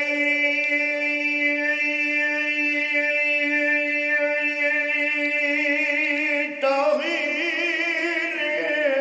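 A man's voice holding one long chanted note in a mourning recitation. About two-thirds of the way through it moves to a slightly higher note and wavers up and down.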